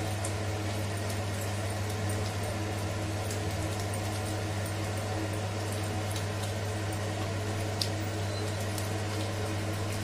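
A steady low hum, with faint scraping and light clicks as a wooden spatula stirs thick simmering gravy in a nonstick pan.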